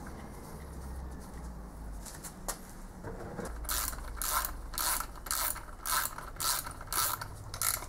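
A socket ratchet wrench clicking as it turns a bolt into a tapped hole in a cast bearing cap. After a quiet start, the strokes come about three a second from about three and a half seconds in.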